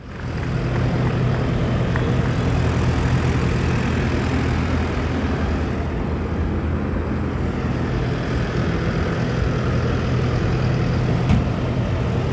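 Diesel engine of an ACE AX124 backhoe loader running steadily, an even low drone.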